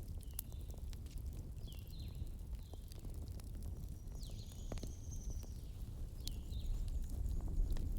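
Wood fire crackling: scattered sharp pops and snaps over a steady low rumble. Several short, high chirps falling in pitch recur through it, and a brief high whine comes about halfway.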